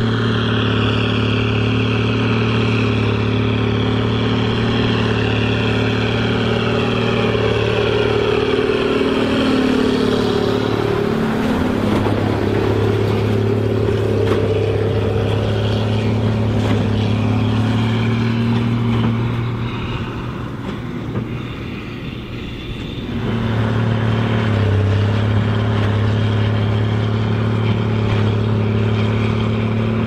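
Case 2294 tractor's six-cylinder diesel engine running steadily under load while it pulls a working Hesston 4900 large square baler through straw. A falling whine runs through the first ten seconds or so. The sound sinks about twenty seconds in and cuts back in suddenly a few seconds later.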